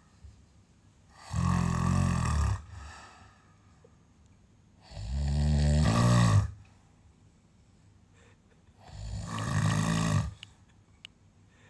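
A sleeping animal snoring: three low snores, each a little over a second long, about four seconds apart.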